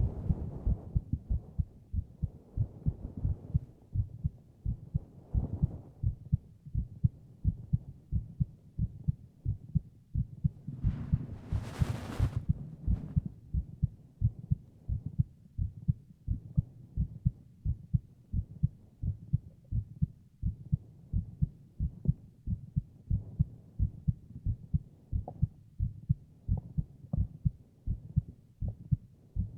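A man's heartbeat heard close up, as with an ear against his chest: a steady, even lub-dub thumping. A brief soft noise comes in about eleven seconds in.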